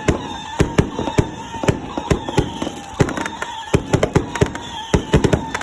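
Consumer fireworks going off in rapid, irregular bangs and crackles, with a steady whistling tone running underneath.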